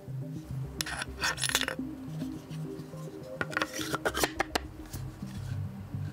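Background music, with metal hand tools clicking and rattling against a resin 3D-printed tool holder as they are handled: a cluster of clicks about a second in and another around four seconds in.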